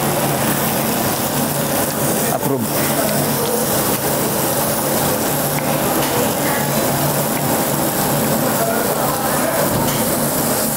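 Beef sizzling on a tabletop Korean barbecue grill: a steady hiss, with voices and faint music underneath.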